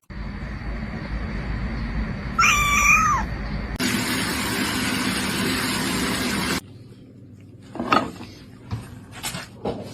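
A domestic cat meows once, a single call that rises and then falls, over a low background rumble. Right after it comes about three seconds of loud, even rushing noise that starts and stops abruptly, then a few soft knocks.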